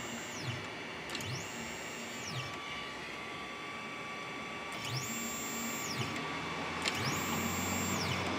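Stepper motors of a 3018 desktop CNC router jogging its axes in several short moves. Each move is a whine that rises in pitch as the motor speeds up, holds, then falls away as it slows to a stop. A faint steady hum runs underneath.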